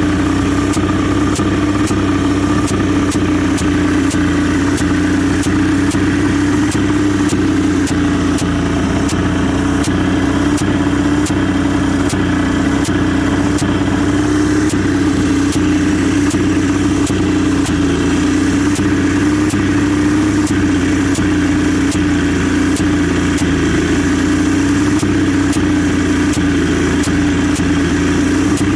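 1981 Johnson 200 hp V6 two-stroke outboard motor idling steadily, with a hiss over the engine note and a regular sharp tick about every two-thirds of a second. The hiss at idle is the fault under investigation; its cause is unknown.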